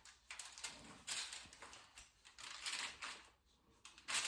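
Hands mixing raw chicken breasts coated in olive oil, lemon juice and dry seasonings in a tray: irregular soft squishing and smacking, with a short lull near the end.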